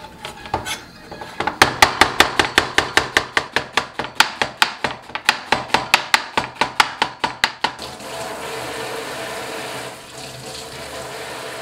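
Chef's knife slicing an onion into thin strips on a cutting board: rapid, evenly spaced strokes, each blade knocking through onto the board. The strokes stop near the middle, leaving a steady hiss.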